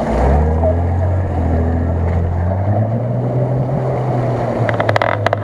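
Off-road 4x4 engine pulling under load as the spinning wheels churn through mud and water. The engine note rises partway through and holds, with a few sharp knocks near the end.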